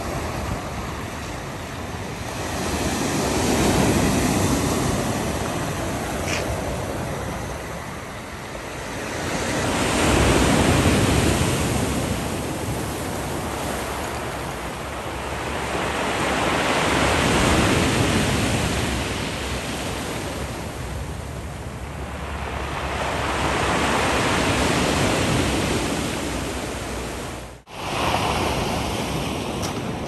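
Black Sea surf breaking and washing up a pebble beach: a continuous rushing that swells and fades about every seven seconds, four surges in all, broken off for an instant near the end.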